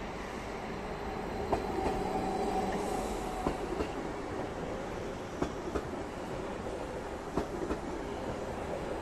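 SBB RABe 523 Stadler FLIRT electric multiple unit rolling slowly along the platform, a steady rumble with a faint electric whine. Its wheels give sharp clicks about every two seconds as they pass over the rail joints.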